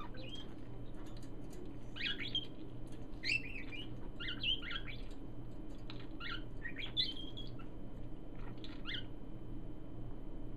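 Pet parakeets, a budgie and a lineolated parakeet, giving short chirps and chattering calls in several clusters with brief pauses between them, over a steady low hum.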